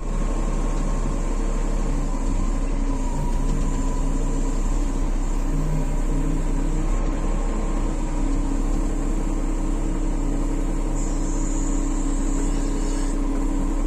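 Heavy diesel engine idling steadily, with a constant low rumble and a few steady tones over it.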